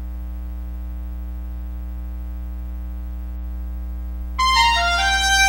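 A steady low hum, then about four seconds in synthesizer theme music starts with bright held notes.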